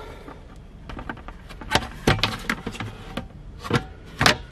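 Black plastic lid being handled against the rim of a white five-gallon plastic bucket: rubbing and scraping, broken by a series of sharp clicks and knocks, the loudest about two seconds in and just before the end.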